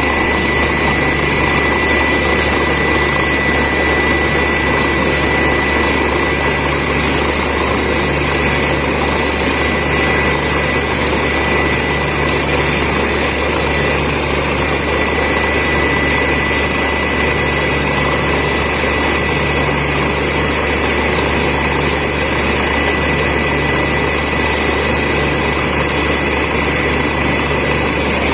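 Borewell drilling rig and its air compressor running steadily and loudly, with a low pulse repeating about every couple of seconds and a constant high whine.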